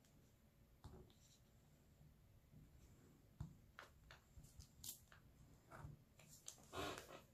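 Faint, scattered clicks and taps of diamond painting: a drill pen picking up resin drills and pressing them onto the sticky canvas. A slightly longer, louder scrape comes near the end.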